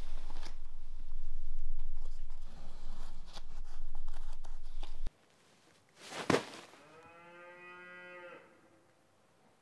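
A deep low rumble with light clicks of playing cards being laid on the table, cutting off suddenly about five seconds in. A sharp swish about six seconds in, then a cow mooing once for about a second and a half.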